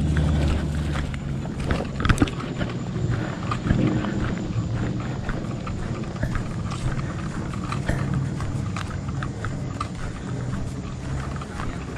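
Footsteps on grass and soft ground, with irregular knocks and rustling from carried gear, over a low rumble.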